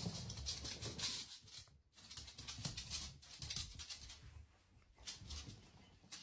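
A dachshund moving about on a laminate floor and in its bed: quick light clicks, patters and scratches.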